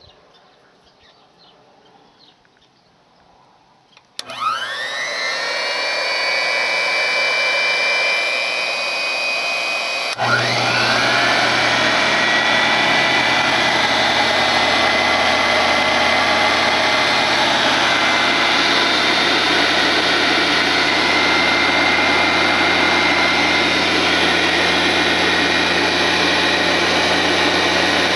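Black & Decker Type A valve refacer's electric motors starting up: one motor spins up with a rising whine about four seconds in, a second starts around ten seconds in, adding a low hum, and both then run steadily.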